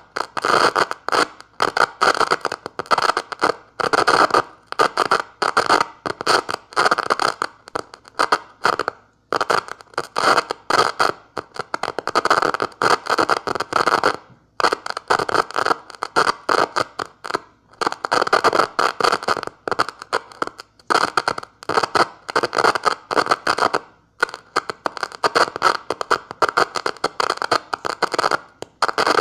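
Hand-keyed Morse code sent through an improvised screwdriver-contact switch, heard as rapid on-off bursts of scratchy, crackling noise rather than a clean tone. The bursts come in quick irregular runs broken by short pauses every few seconds.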